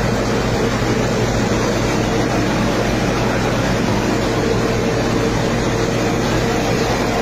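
Wheat thresher running steadily while wheat straw is fed through it: a loud, unbroken mechanical din with a constant hum under it.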